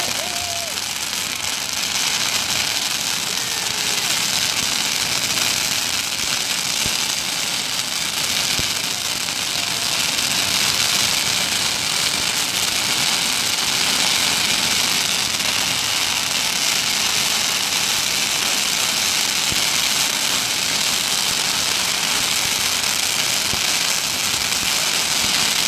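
Long hanging strings of Chinese firecrackers going off, several strings at once, in a dense, unbroken crackle of rapid small bangs.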